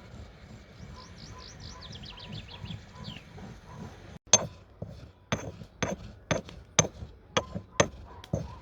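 A bird's fast descending trill, then about eight sharp, loud knocks, roughly two a second, over faint outdoor background.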